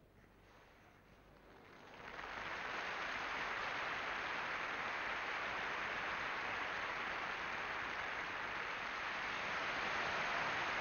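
Arena crowd breaking into applause about two seconds in, then clapping steadily.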